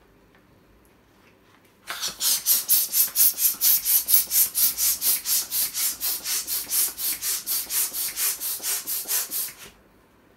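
Hand balloon pump worked quickly to inflate a latex balloon: an even run of strokes, each a rush of air, about four a second. It starts about two seconds in and stops shortly before the end.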